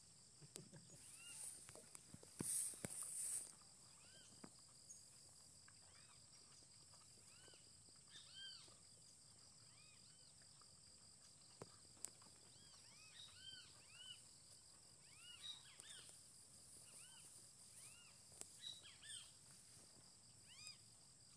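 Faint pasture ambience: a steady high insect drone, with short chirps repeating irregularly about twice a second through the second half. A brief hiss comes between about two and a half and three and a half seconds in.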